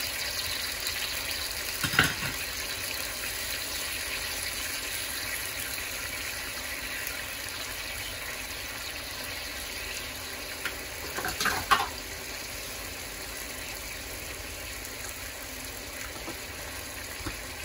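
Pork rib pieces and ginger slices sizzling steadily in soy sauce and caramelised sugar in a wok, slowly growing a little quieter. There is a sharp click about two seconds in and a few light clicks around eleven to twelve seconds.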